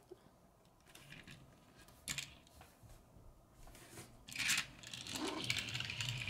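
A small die-cast toy car handled on a wooden surface: a faint click about two seconds in, then a couple of seconds of scraping and rattling as it is rolled and set down among the other cars.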